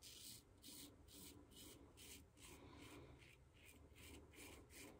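Gillette Old Type open-comb safety razor with a Personna Lab Blue blade scraping through lathered stubble: faint, short, scratchy strokes, about two or three a second.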